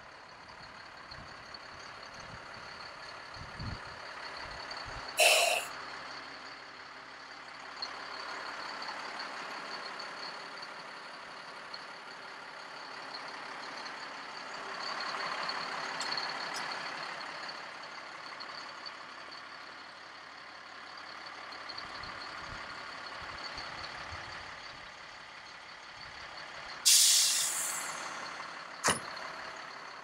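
Air brake system venting compressed air in two short, sharp hisses, about five seconds in and near the end. The second hiss is the louder and trails off. Between them run a steady high whine and a hum that swells and fades.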